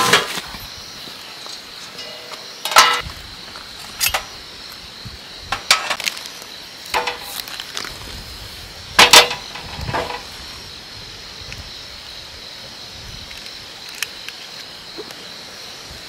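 Camping gear being handled: a bubble-foil pouch rustling and a handful of sharp metallic clanks as a small metal fire pit is set up, loudest about three seconds in and again about nine seconds in. A steady high insect chirring runs underneath.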